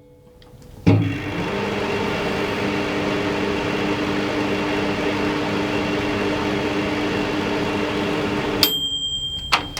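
Microwave oven switching on with a click about a second in and running with a steady hum for about eight seconds, then stopping. A high beep follows for about a second.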